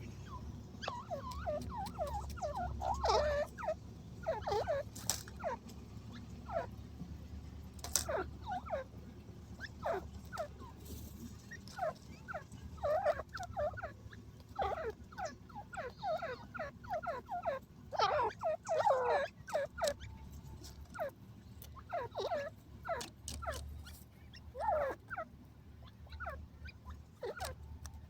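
Desi teetar (francolin) calling in many short, quick, bending clucks that come in irregular clusters, with a few sharp clicks among them.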